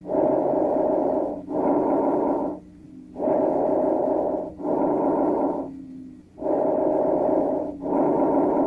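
Recorded lung breath sounds: about three breaths, each an in-breath and an out-breath of about equal length and loudness, with a short pause between them and a longer pause before the next breath.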